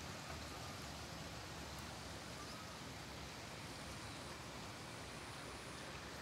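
Faint, steady outdoor background noise: an even hiss with no distinct sound standing out.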